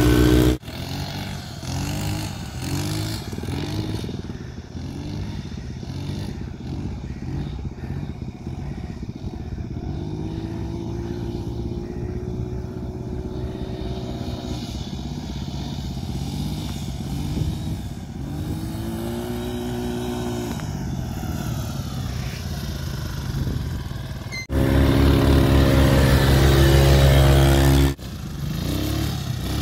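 Small quad bike engines revving on sand, the pitch rising and falling as the throttle opens and closes. A much louder engine comes in for a few seconds near the end.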